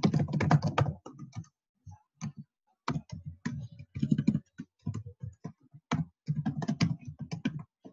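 Typing on a computer keyboard: quick runs of keystrokes broken by short pauses.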